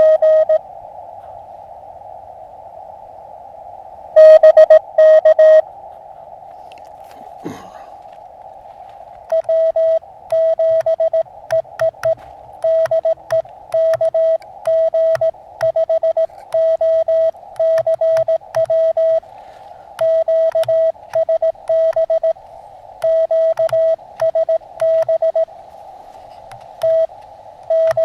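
Elecraft KX2 transceiver sounding Morse code (CW): a single steady tone keyed on and off in dots and dashes over a narrow band of receiver hiss. There are a few louder keyed bursts near the start and about four seconds in, then from about nine seconds in a long, unbroken run of Morse characters.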